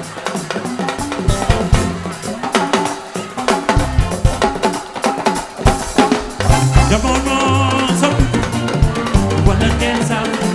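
A DJ mix playing: music with a drum kit and busy percussion. Heavy bass comes in about two-thirds of the way through.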